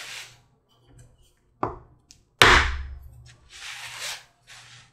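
A mallet strikes a hand punch held on glued layers of holster leather, punching holes at the corners. A sharp knock comes about a second and a half in, and a louder one under a second later. Softer scuffing noise follows.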